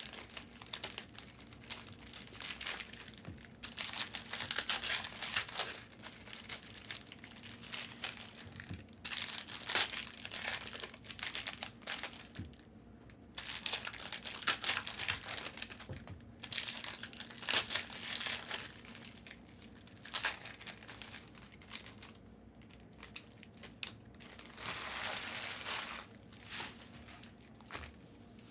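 Plastic wrappers of basketball trading card packs crinkling and tearing as packs are ripped open, in spells of a few seconds with short pauses between.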